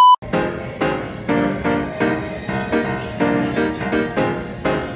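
A test-card beep that cuts off in the first moment, followed by background piano music with notes struck at a steady, even pace.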